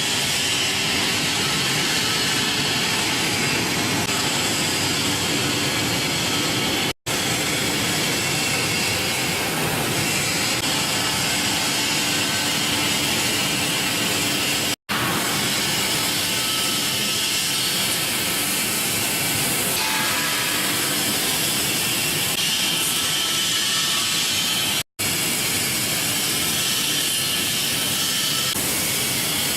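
Commercial vegetable washing machine running: a steady, loud hiss of spraying and churning water over machine noise. It cuts out briefly three times.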